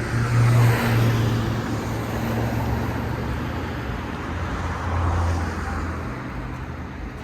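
Road traffic: cars passing with a steady low engine hum, one passing about half a second in and another about five seconds in.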